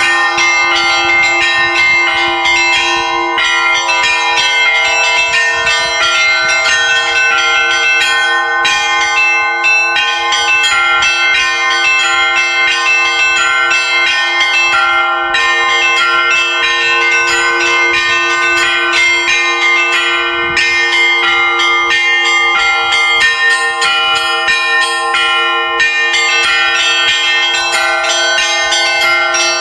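Russian Orthodox church bells rung in a continuous peal: quick repeated strikes of the smaller, higher bells over the steady hum of the lower bells.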